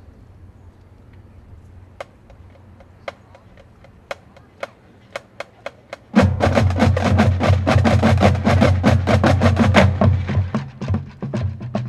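Marching drumline playing a cadence: sparse, sharp stick clicks that come closer and closer together, then about six seconds in the full battery of snares and bass drums comes in loudly.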